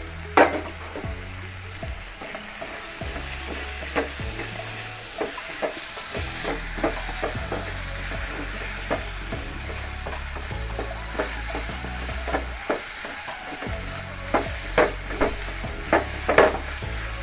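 Chopped onions and tomatoes sizzling in sunflower oil in a metal kadai while a wooden spatula stirs them, knocking and scraping against the pan. The knocks come more often near the end.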